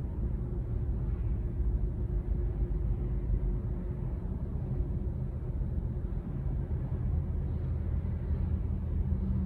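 Steady low rumble of a car heard from inside its cabin as it rolls slowly in congested freeway traffic, with a faint steady hum underneath.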